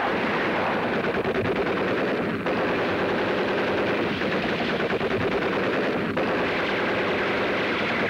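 Battle sound on a war film soundtrack: sustained rapid machine-gun fire, near-continuous, with brief breaks about two and a half and six seconds in.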